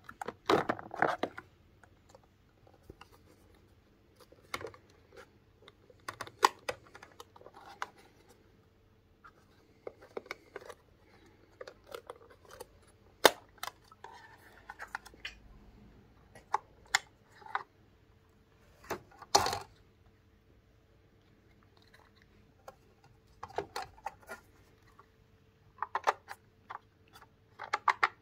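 Hands handling plastic parts and packaging: scattered clicks, snaps and short rustling scrapes with pauses between them. The sharpest click comes about halfway through, and a longer rustle follows a few seconds later.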